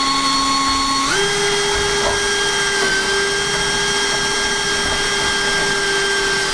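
Power drill with a 10 mm bit boring a starter hole down through a wooden worktop for a jigsaw cut. The motor whines steadily, steps up to a higher speed about a second in, and stops at the end.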